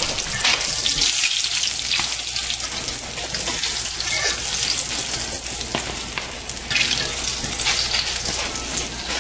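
Batter-coated whole smelts frying in hot vegetable oil in a cast-iron skillet: a steady sizzling hiss with scattered crackles.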